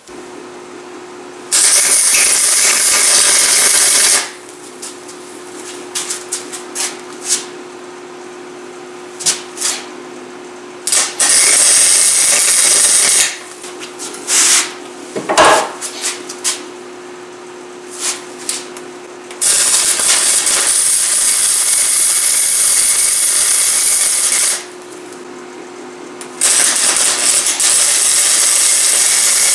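Arc welder welding a small steel piece onto a headlight bracket in four runs of a few seconds each, each a loud steady hiss. Between the runs the welder hums steadily and there are light metal taps, with one louder ringing clank midway.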